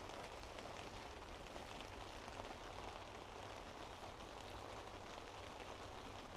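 Steady light rain falling on a camp tarp, a constant hiss of many small drop ticks.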